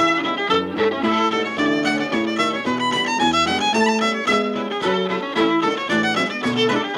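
Cape Breton-style fiddle playing a hornpipe: a quick, unbroken stream of bowed notes.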